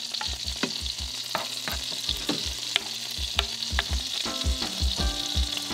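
Creamy white wine Alfredo sauce with clams simmering in a frying pan on an electric stove: a steady sizzle with scattered small pops.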